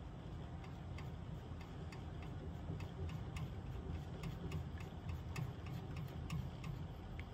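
Small sharp clicks, several a second in irregular clusters, from an aftermarket universal tilt steering column's levers and mechanism being worked by hand, over a low steady hum.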